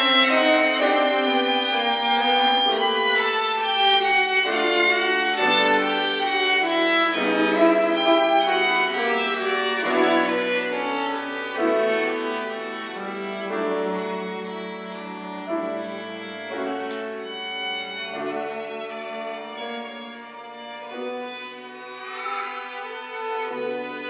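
Piano trio of violin, cello and piano playing a classical miniature with long bowed notes. It grows softer in the second half.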